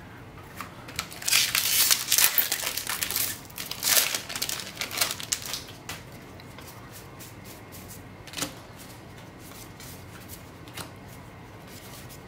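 Crinkling, rustling noise for the first few seconds, as a Magic: The Gathering booster pack's wrapper is torn open and the cards are pulled out. After that come a few soft clicks as the cards are handled and flipped through.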